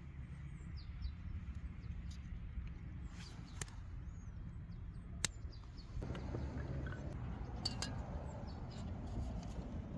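Hand-held butane torch hissing as its flame is held to a twine tinder bundle under small pieces of wood, the noise growing stronger about six seconds in. A few sharp clicks, the loudest just past the middle, and faint bird chirps in the background.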